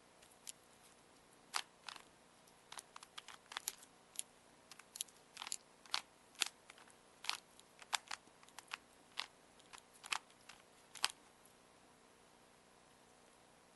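Rubik's Cube being twisted by hand while it is solved: its plastic layers turning with irregular sharp clicks, sometimes several a second, with short pauses between bursts of turns. The cube is lubricated with olive oil and petroleum jelly.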